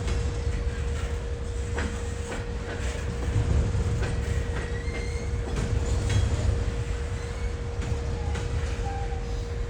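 A train rolling past on the rails: a steady low rumble with a constant hum, wheel clicks over the rail joints and brief high wheel squeals.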